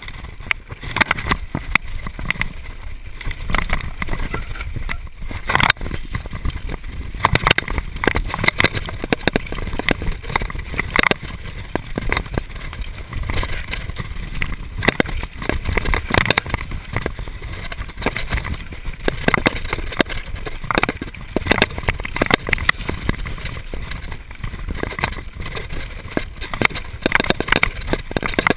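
Mountain bike riding fast downhill on a rough dirt trail: a steady rumble of tyres and wind on the microphone, broken by frequent sharp clatters and knocks as the bike bounces over stones and roots.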